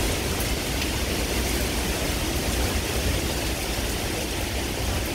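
Derecho wind blowing hard with heavy rain: a steady rushing noise, with wind rumbling on the phone's microphone.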